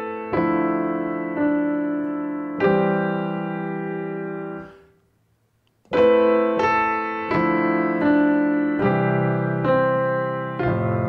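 Piano sound played from a keyboard: a slow, simple melody over sustained chords harmonised with suspended-second chords. It is played in two phrases, a chord struck about once a second and left to ring, with a complete break of about a second between them.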